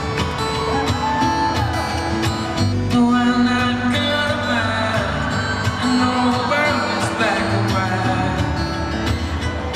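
Acoustic guitar playing a song's intro through a concert PA, heard from the audience of a large live venue.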